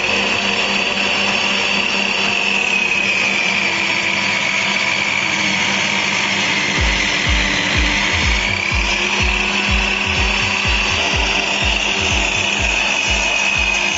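Prescott PT0825401 table-top miter saw running in table-saw mode as a board is pushed through the blade. Its high motor whine sags in pitch in the middle of the cut and rises again. Background music with a steady beat comes in about halfway.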